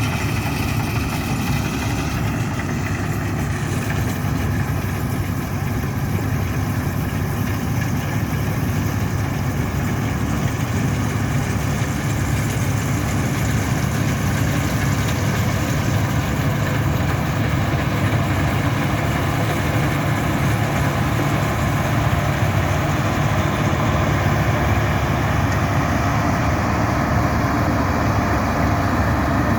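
Combine harvester engine running steadily at a constant speed, a continuous low drone with no change in pitch or level.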